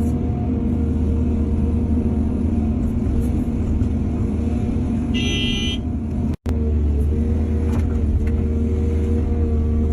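Heavy diesel engine of an excavator or dump truck running steadily with a deep rumble. A brief high-pitched tone sounds about five seconds in, and the sound cuts out for a moment about a second later.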